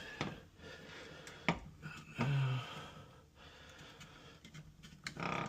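Scattered clicks and knocks of tools being handled at a door, with a short low hum about two seconds in and a brief noisy rustle near the end.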